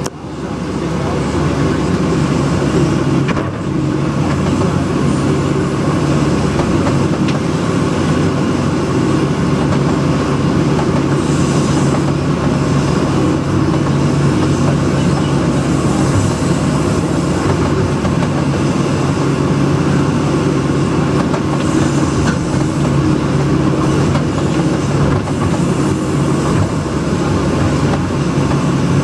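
Case CX160B excavator's diesel engine running steadily while digging a trench, with a few brief high hissing surges.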